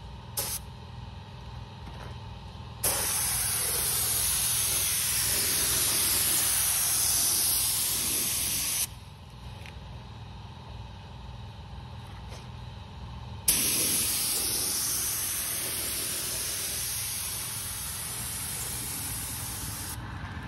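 Compressed-air gravity-feed spray gun spraying paint: two long hissing passes of about six seconds each, each starting suddenly, the first about three seconds in and the second around thirteen seconds. A steady low drone runs underneath, with a few short clicks at the start.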